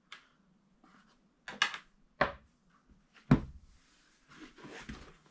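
Sony WH-1000XM5 hard carrying case being handled and shut: a few light clicks and knocks, the loudest a thunk a little after three seconds as the lid closes, then a short scraping rustle near the end.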